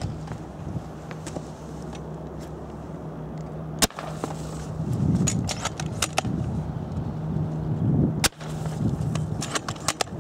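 Two shots from a spring-powered JG BAR-10 bolt-action airsoft sniper rifle firing .40 g BBs point-blank into a BB trap, one a little under four seconds in and one a little after eight seconds. Each shot is a single sharp crack. Between them come smaller clicks and rustling from handling the rifle, over a steady low hum.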